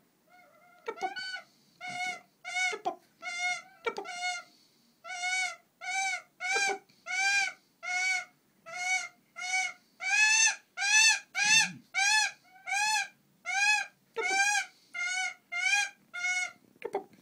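Female Siberian goshawk (Accipiter gentilis buteoides) calling in a long, even series of short, arched, nasal calls, about two a second, growing louder midway. It is the calling of a female coming into breeding condition, nearly ready to mate.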